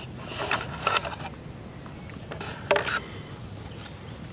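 Rustling and handling noises from a hunter's clothing and gear as he shifts position. Short bursts come about a second in and again just before three seconds in, the later one the loudest.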